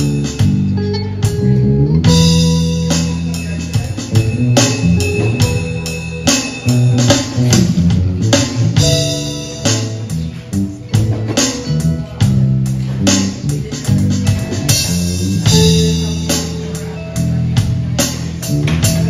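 Live instrumental band jam: electric guitar, electric bass and drums playing together, with a steady drum beat under sustained bass notes and guitar lines.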